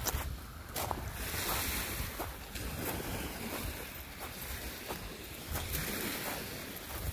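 Small waves washing on a pebble lakeshore, with wind rumbling on the microphone and footsteps crunching on the gravel about every half second.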